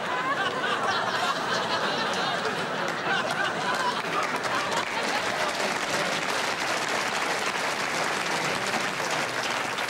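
Studio audience laughing, a steady dense wash of many voices that carries on without a break.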